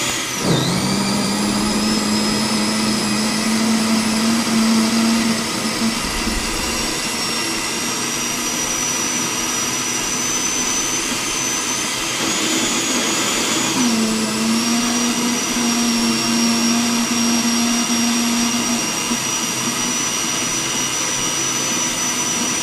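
Philips countertop blender motor spinning up and running steadily with a high whine, puréeing a jar of spinach over a cooked base. A little past halfway the whine dips briefly, then picks up again.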